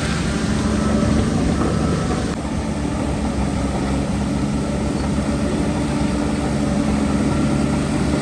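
Heavy earthmoving machine's diesel engine running steadily.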